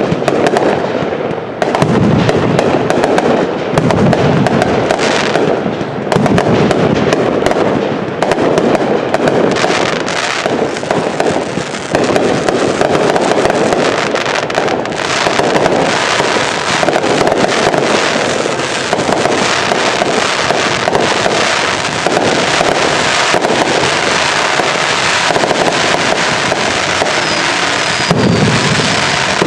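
Consumer fireworks finale: a dense, continuous barrage of crackling and popping bursts, with deeper booms about two and four seconds in and again near the end.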